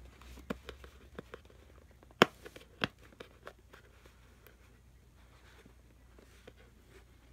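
Fingernails picking and scraping at a sticker on a packaged booklet, with scattered sharp clicks and taps; the loudest come around two to three seconds in, and after that only a few faint ones.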